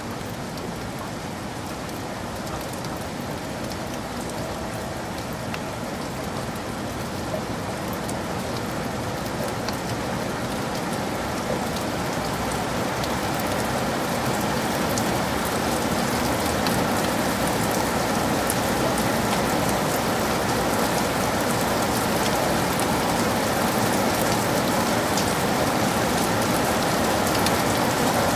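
Heavy rain falling in a forest: a steady rush of rain with individual close drops striking, slowly growing louder.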